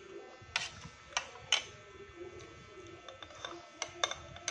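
Metal spoon and fork clinking against a plate and bowl while eating: several sharp clinks, three in the first second and a half, then a quicker run of them from about three seconds in, over a faint steady hum.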